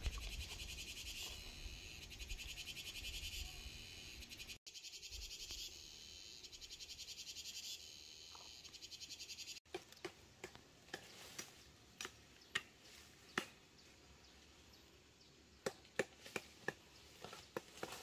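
Insects trill in a high, fast-pulsing drone that stops abruptly about halfway through. After that come scattered sharp cracks and snaps, with a faint background.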